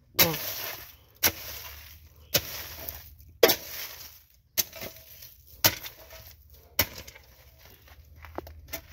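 Garden hoe chopping into hard, dry soil: seven blows about a second apart, the first few each followed by a scraping rasp as the blade drags through the earth.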